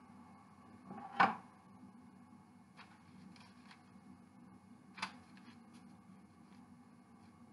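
Light handling knocks from a stainless steel saucepan being tipped out over a pastry pie shell: one sharp knock about a second in, a smaller one about five seconds in, and a few faint ticks, over a low steady hum.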